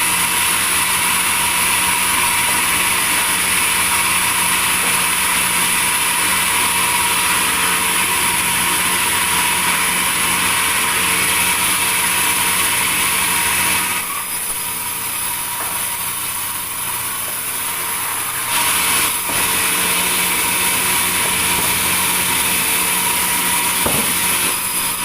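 Sawmill saw running with a steady machine hum and a loud hissing cut through wood. The cutting hiss eases for a few seconds past the middle, then picks up again.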